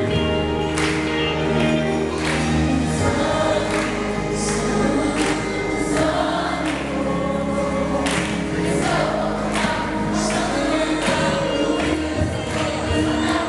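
Youth choir singing a Portuguese-language gospel song over band accompaniment, with long bass notes and regular drum and cymbal hits.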